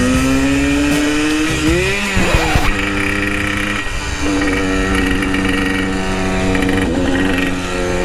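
Vintage Yamaha two-stroke enduro engine under way: its pitch climbs as it accelerates, drops with a shift about two seconds in, then runs steady at a higher cruising note.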